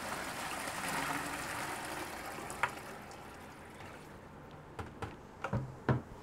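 Water splashing and running in a plastic bucket at a utility sink, fading out about three seconds in. This is followed by a few light knocks as the plastic bucket is handled.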